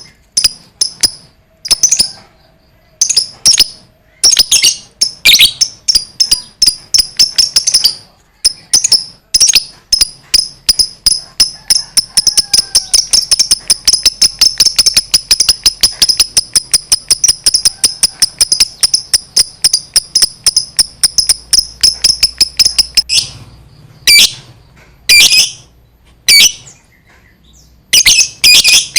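Lovebird giving its long 'ngekek' chatter: a rapid, unbroken string of high, shrill notes. Several short bursts come first, then one long run of about fourteen seconds, then a few short bursts again near the end.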